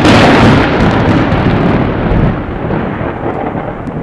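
Thunder sound effect: a sharp crack right at the start, then a long rumble that slowly fades.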